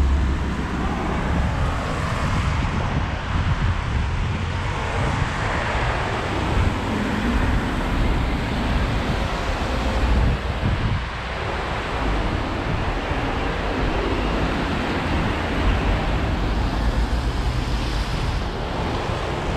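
Wind buffeting the microphone over a steady rush of road traffic on a wet road, with a low rumble.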